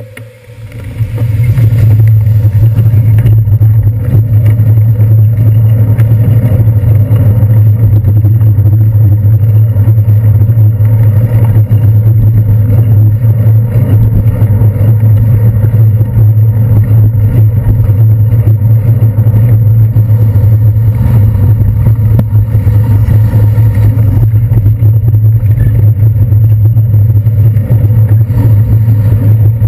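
Loud, steady low rumble of wind and road vibration on a handlebar-mounted GoPro Hero 2 as the bicycle rides on wet city streets. It swells up about a second in and then holds without change.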